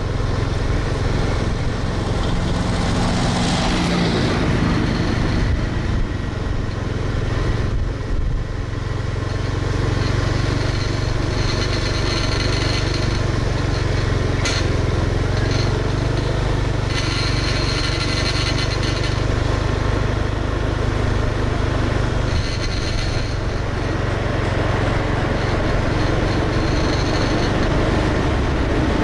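A vehicle's engine running steadily at a low drone, with road and wind noise, while travelling along a paved road. A motor scooter passes close by near the end.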